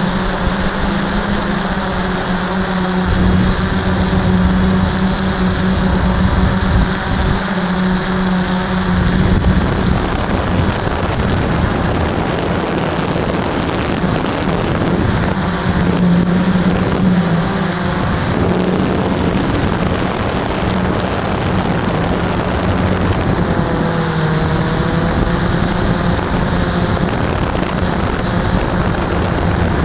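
Radio-controlled model aircraft's motor and propeller, heard from a camera on board, running with a steady drone that weakens and comes back as the throttle changes, over rushing wind noise.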